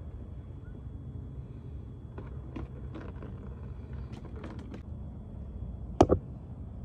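A plastic funnel and oil jug being handled: a few light clicks and taps over a low steady rumble, then one sharp knock about six seconds in.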